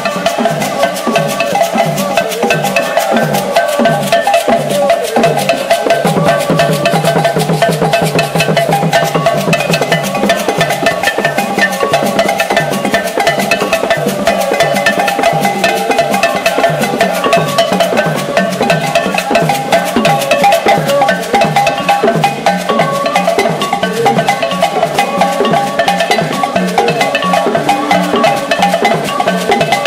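Live Cameroonian traditional percussion: several tall hand drums beaten with sticks, together with shakers, keeping a fast, steady rhythm under sustained pitched notes.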